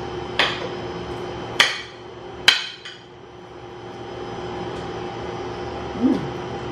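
Fork and spoon clinking against a plate while eating: three sharp clinks in the first two and a half seconds, the last two loudest, over a steady low hum.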